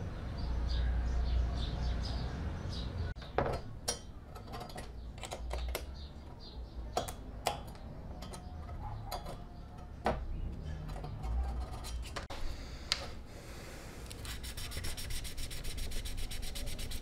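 Hand filing and sanding on a bare die-cast metal model car body: scraping strokes with scattered sharp clicks of the tool against the metal, then quick, even back-and-forth rubbing of a sanding block on a metal piece near the end.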